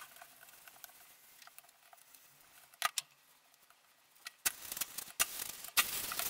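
Faint crackles and small clicks of water on the hot paper and board, then from about four and a half seconds a sizzling hiss as the hot clothes iron is pressed onto the wet toner-transfer paper and steams.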